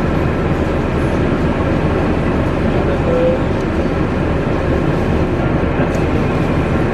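Jet airliner engines running, a loud steady rush with faint steady whining tones above it.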